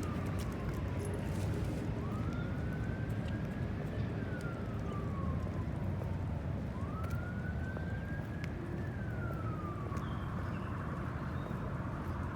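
Emergency vehicle siren in a slow wail: the tone rises quickly, then falls slowly, about two full cycles, over a steady low rumble.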